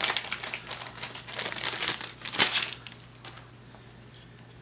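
Clear plastic packaging bag crinkling as hands unwrap a small cable part, loudest about two and a half seconds in, then dying away after about three seconds.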